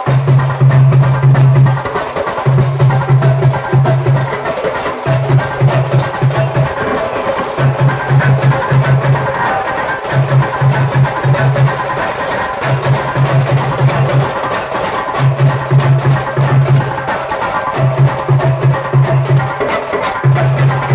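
Maharashtrian banjo party band playing loud, busy drum and percussion rhythms, with a deep note pulsing in short rhythmic phrases that repeat about every two and a half seconds.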